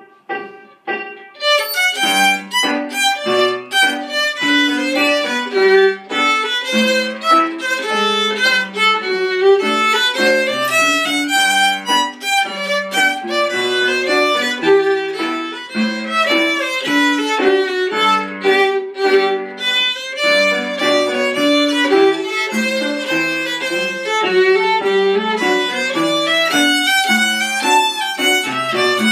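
Solo violin played with the bow: a tune of short, quickly changing notes with hardly a break between them, beginning about a second in.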